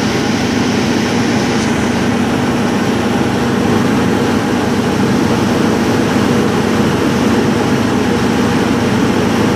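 Engine of a miniature zoo train running steadily, a constant mechanical hum with a low drone, heard from the engineer's seat.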